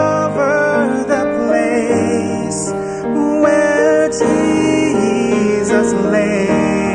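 Grand piano playing a slow carol arrangement, with a held melody line above it that wavers in pitch.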